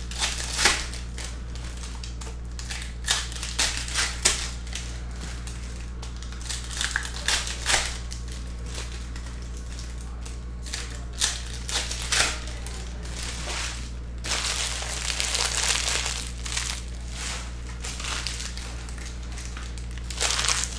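Foil wrappers of Skybox Metal Universe Champions trading-card packs crinkling and tearing as packs are ripped open by hand. The sound comes in repeated short bursts, the longest a stretch of about two seconds some two-thirds of the way through.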